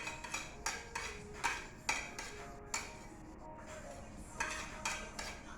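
Metal utensil clicking and knocking against a cooking pot while stirring garlic in melted butter, with sharp irregular taps several times a second that thin out midway and pick up again near the end.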